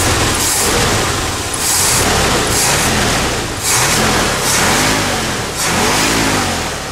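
Ford 400 V8 with a retrofitted GM HEI distributor, revved by hand at the carburetor several times, the pitch rising and falling with each rev. The blips test how it pulls as the ignition timing is being set.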